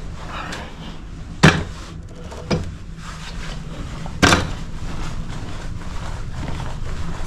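A metal step ladder being handled and set up: three sharp clacks, the first and last the loudest, over a steady low hum.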